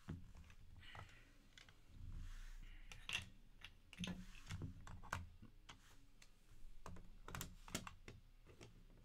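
Faint, scattered clicks and taps of hard plastic card cases and wooden display stands being handled and set down on a table, a few louder taps standing out, over a low steady hum.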